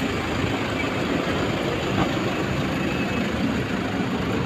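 Steady low rumble of vehicle engines and traffic noise.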